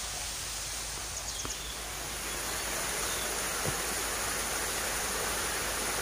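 Shallow river rushing over stones below a small waterfall: a steady, even hiss of running water that grows a little louder about two seconds in.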